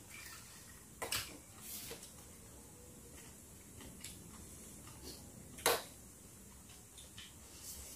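Spoons clinking and scraping against ceramic plates and metal bowls while food is served and eaten, a few scattered light clicks, with a sharp clink about a second in and a louder one a little past the middle.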